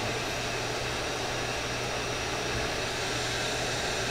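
Hot-air heat gun turned up and blowing steadily: an even rushing hiss with a faint low hum. It is heating a circuit board to melt the solder under a surface-mount LED so that it can be lifted off.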